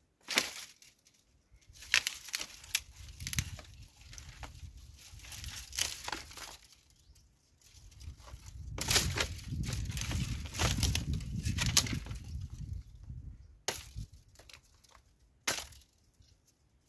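Dry dead branches cracking and snapping as they are cut and broken up, several separate sharp cracks. For a few seconds midway there is continuous rustling and scraping of brittle twigs as the branches are pulled and dragged.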